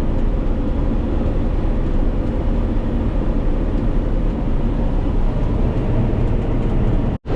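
Combine harvester running steadily while cutting soybeans, heard from inside the cab: a dense machinery drone with a faint steady hum. The sound drops out for an instant near the end.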